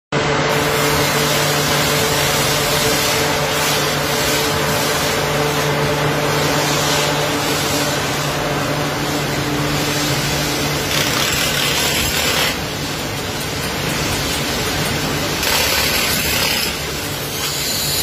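Loud, steady rushing noise of a blast furnace cast house during tapping, with molten iron spraying sparks from the tap hole. A large cooling fan adds a steady low hum through the first half.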